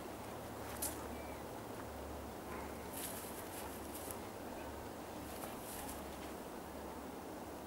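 Quiet outdoor background with a steady hiss, one short click about a second in, and a few brief rustles midway and near the end.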